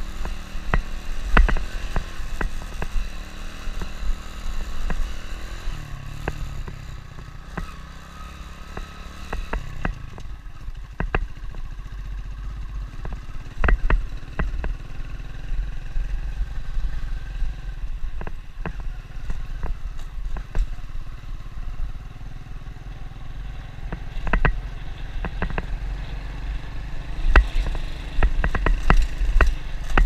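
Motorbike engine running steadily at riding speed on a rough gravel dirt road, with frequent sharp knocks and rattles as the bike goes over stones and bumps, most of them near the end.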